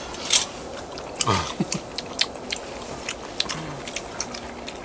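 People chewing and eating steamed scallops, with scattered small sharp clicks and a short murmur of voice about a second in.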